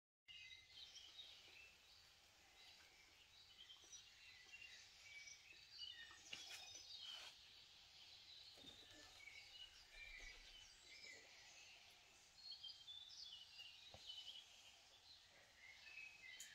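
Faint birdsong: many small birds chirping in short, scattered notes, with a few soft clicks.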